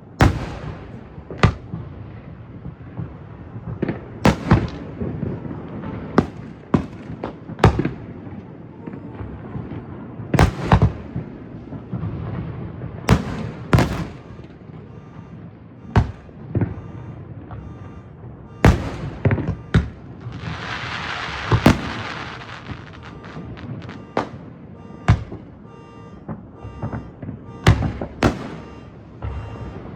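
Fireworks display: aerial shells going off in sharp booms at irregular intervals, some in quick pairs, with a burst of crackling hiss lasting a second or two about two-thirds of the way through.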